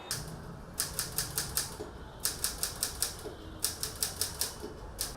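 Manual typewriter keys striking in quick runs of about six strokes each. There are three runs with short pauses between them, then a single stroke near the end.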